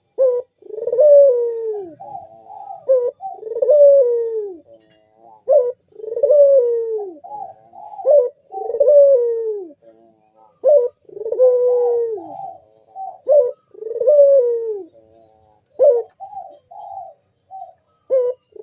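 Puter dove (domestic ringneck dove) cooing in a loud, deep 'bekur' song: repeated downward-sliding coos about every two seconds, each followed by a few short clipped notes.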